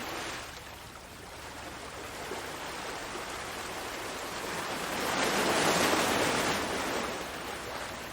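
Ocean waves washing on the shore. One wave swells and breaks about five seconds in, then washes back out.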